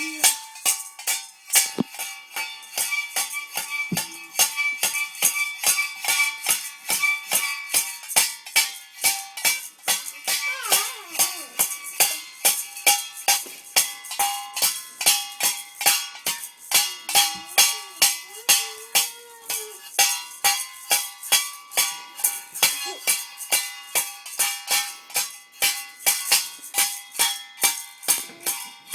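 Metallic jingling strikes repeating evenly about three times a second, each with a bright ringing tone, going on without a break.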